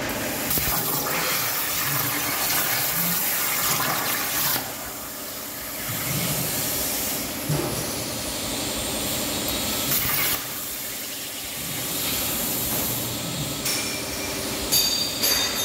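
Air plasma cutter, run by a CNC table, hissing steadily as it cuts 1 mm sheet metal, with the hiss dipping and coming back a few times.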